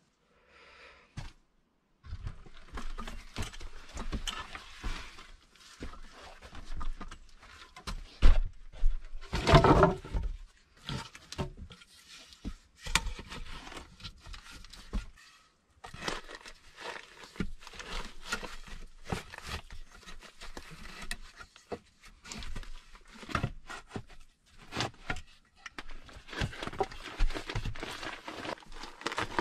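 Irregular knocks, bumps and rustling as wooden roof poles and logs are handled by hand, with a louder run of bumps about eight to ten seconds in.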